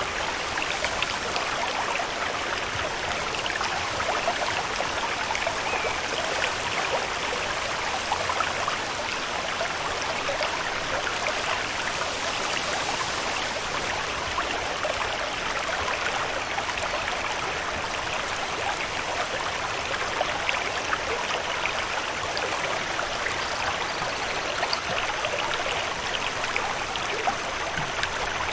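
Steady water ambience: an even hiss with a fine, dense patter of falling or running water, unchanging throughout.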